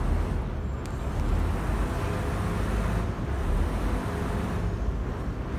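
Steady low rumble of a river car ferry's engine running, heard from on deck.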